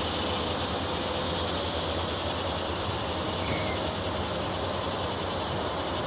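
Steady outdoor background noise: a constant high hiss over a low rumble, with no distinct event.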